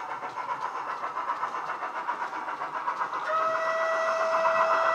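Model locomotive's DCC sound decoder (Jamie Goodman LokSound sound) playing through a small tablet speaker: running sounds, then a long steady whistle starting a little over three seconds in.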